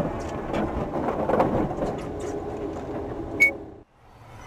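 A car grinding against the side of a truck trailer just after a collision: a rough rumble with scattered knocks and rattles that slowly dies down. There is a sharp click about three and a half seconds in, then a sudden drop to a faint steady engine hum near the end.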